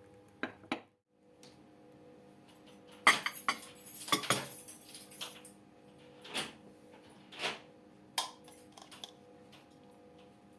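Kitchen dishes and cutlery clinking and knocking: two quick clinks near the start, a cluster of clatters about three to four and a half seconds in, then single clinks about once a second. A faint steady hum runs underneath.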